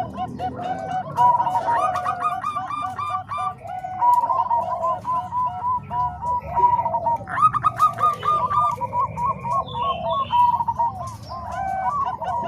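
Several zebra doves (perkutut, Bangkok and cemani kolbuntet types) cooing together in overlapping series of short, quickly repeated staccato coos.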